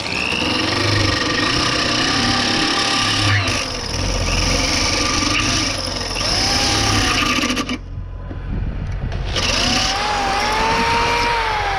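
Power drill boring pilot holes, its motor whine rising and falling in pitch as the trigger is worked and the bit cuts. It lets up briefly about eight seconds in, then runs again.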